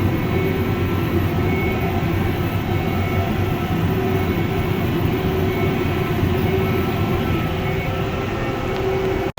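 Tractor pulling a high-density square baler through the hay, engine and baler running steadily at an even pitch. The sound cuts off abruptly just before the end.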